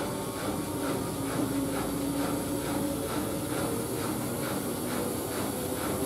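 Siemens Siwamat IQ 716 front-loading washing machine running. A steady motor hum sits under a hiss, with a swish that repeats about twice a second as the drum turns.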